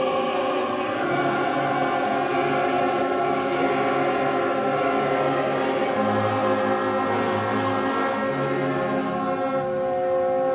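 Choral music, voices singing long held chords over a slowly shifting bass.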